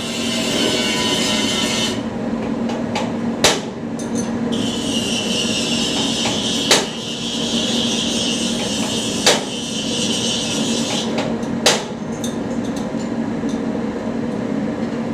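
Four single hammer blows on metal, a few seconds apart, during a turbocharger overhaul. Under them runs a steady machine hum and a hiss that drops out twice and comes back.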